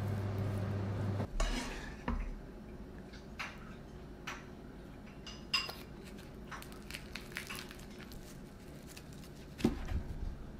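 Sushi-making sounds on a wooden cutting board: a rice paddle patting and spreading rice, scattered light clicks and taps of utensils, and near the end a knife chopping down through a roll onto the board. A low steady hum cuts off about a second in.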